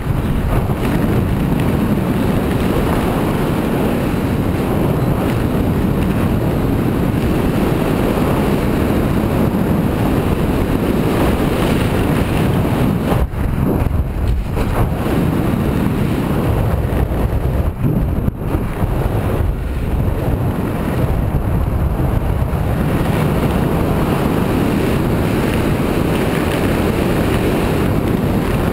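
Wind rushing over the microphone of a skier's body-worn camera while skiing downhill, mixed with skis running over groomed snow. The rush dips briefly twice about halfway through.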